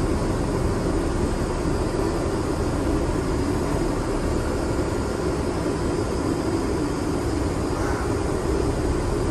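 Steady low rumble of a moving vehicle, running evenly with no change in level.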